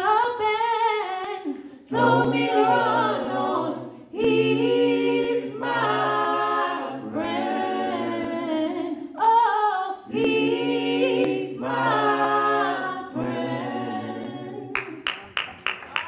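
Small gospel vocal group of mixed male and female voices singing a cappella in close harmony, in held phrases of about two seconds each. Near the end, quick rhythmic hand clapping starts.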